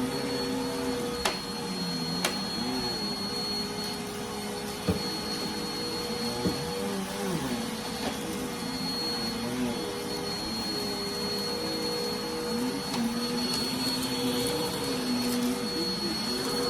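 Dirt Devil Vigor cyclonic pet vacuum running, with a steady high whine over a motor hum that wavers up and down in pitch as the load changes. A few sharp clicks are heard in the first five seconds.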